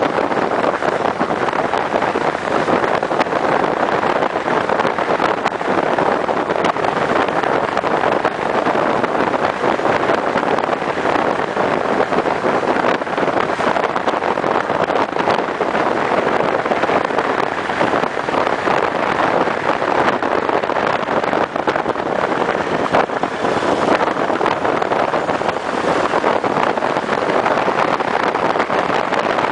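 Motorcycle riding at a steady road speed: constant wind rush over the microphone mixed with engine and road noise.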